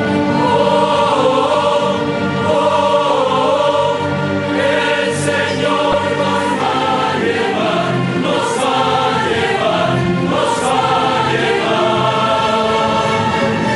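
A choir singing sacred music in many voices together, holding notes and moving between them, with the hiss of sung consonants at a few points.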